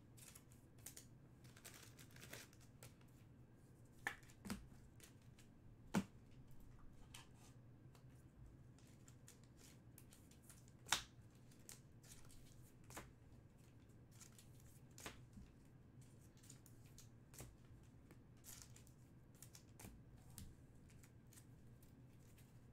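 Faint crinkling, tearing and clicking of trading-card packs being opened and chrome cards handled, with a few sharper snaps; the loudest comes about eleven seconds in.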